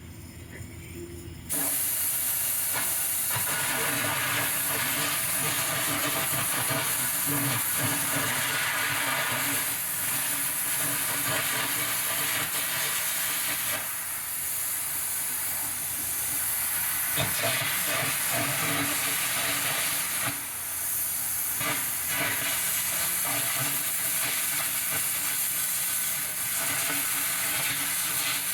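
Cutting torch cutting through the steel mounting brackets on a backhoe bucket: a loud, steady hiss that starts abruptly about a second and a half in and dips briefly twice along the way.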